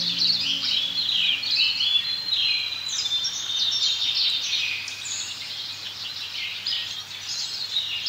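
A chorus of many birds chirping and singing over one another in quick, overlapping chirps and trills.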